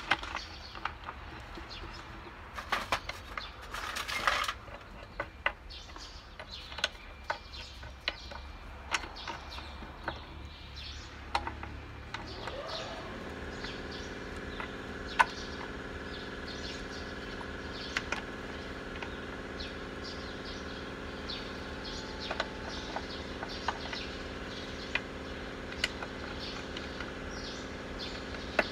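Metal hand tools clicking and tapping on the injectors and fittings of a Nissan GE13 diesel engine's exposed cylinder head, at uneven intervals. About twelve seconds in, a machine starts with a rising whine and then runs steadily with a hum underneath the clicks.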